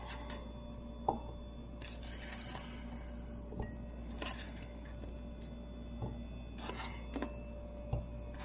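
Soft, scattered clicks and taps as pieces of chopped pepper are dropped into empty glass canning jars. The sharpest click comes about a second in. A steady low hum runs underneath.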